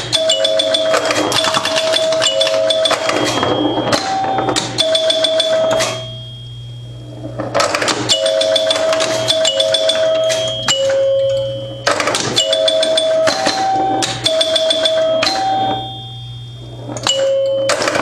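1974 Bally Champ electromechanical pinball machine in play: its score chimes ring at three pitches in quick runs over fast clicking of relays and stepper units. The runs come in bursts of about four seconds with short pauses between, over a steady low hum.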